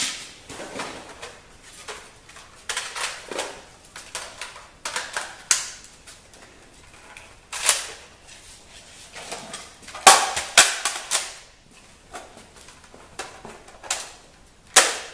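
Plastic clicks and clacks of toy Nerf foam-dart blasters being handled and primed, mixed with rummaging in a duffel bag. A cluster of sharp clacks comes about two-thirds of the way through.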